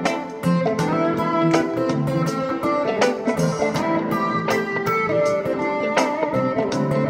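PRS Private Stock Custom 24 electric guitar playing a picked melodic line, with new notes struck a few times a second and ringing on between them.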